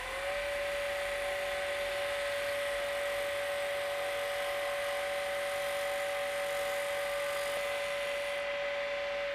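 Woodturning lathe running at a steady speed with a steady high motor whine, while a Robert Sorby TurnMaster carbide cutter in shear-cut mode takes light finishing cuts along the outside of the spinning wooden box blank, with a light hiss of the cut.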